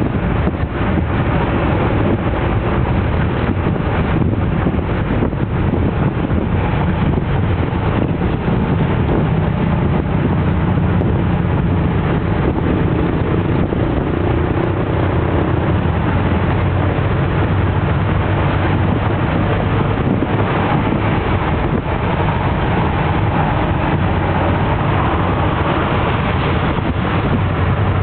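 Jeepney's diesel engine running as it drives along, its low note shifting a little as it speeds up and eases off, under steady road and wind noise heard from inside the open-backed passenger cabin.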